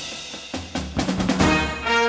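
Band music: drums strike about four times a second, and near the end brass comes in with held notes that step in pitch.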